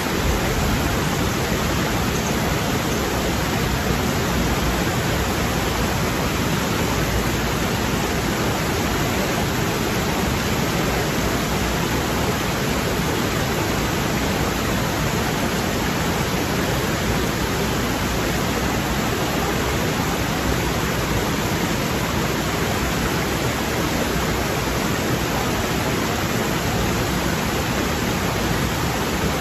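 A rocky stream rushing steadily over boulders and small cascades.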